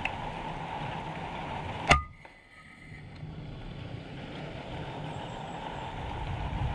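A single sharp shot from an FX Impact .30-calibre PCP air rifle about two seconds in, with a brief ring after it, over a steady background rush.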